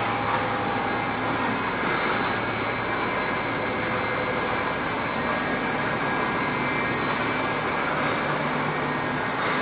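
Fiber opening and recycling production line running: a steady, dense machine noise with a thin high whine over it.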